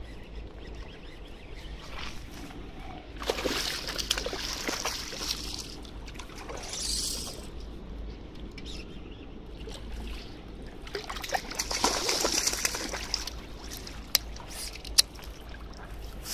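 A hooked trout splashing and thrashing at the water surface close in during the fight, in two main bouts of splashing, with two sharp clicks near the end.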